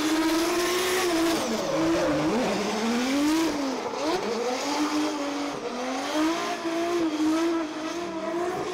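A drift car's engine held high in the revs through a long slide, the pitch dipping sharply twice and climbing back as the throttle is worked, over the screech and hiss of the rear tyres.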